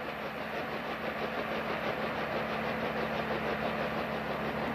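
Bell H-13 Sioux helicopter hovering, its piston engine and rotor running steadily.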